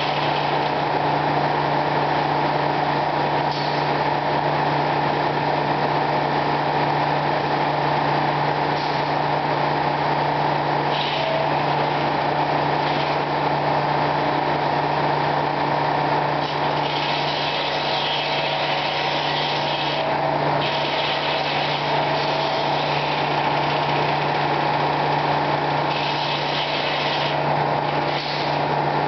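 Circular sawmill machinery running with a steady drone and hum. A hiss swells for a few seconds about two-thirds of the way through and again near the end.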